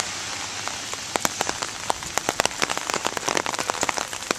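Steady rain falling on wet ground and foliage: an even hiss dotted with many sharp, irregular ticks of close drops.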